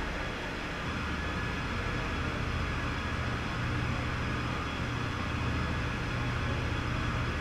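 Self-propelled modular transporter moving a rocket tank section, its power unit running with a steady low hum over a noisy hiss.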